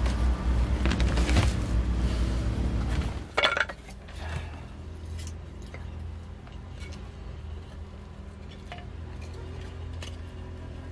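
Cooking pots and utensils clinking and knocking, with one loud ringing clink about three and a half seconds in and small clicks after it. A low rumble fills the first three seconds, then drops away.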